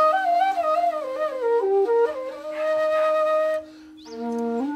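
Background music: a wind instrument plays a melody that steps down in pitch and then holds a long note over a steady drone. It breaks off briefly near the end before a new phrase begins.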